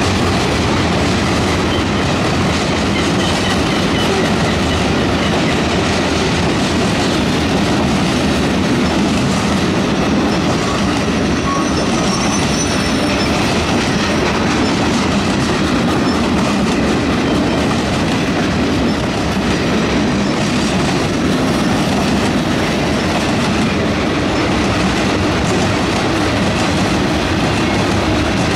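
Freight cars of a CSX mixed freight train, covered hoppers and gondolas, rolling past close by: a steady, loud rumble of steel wheels on the rails.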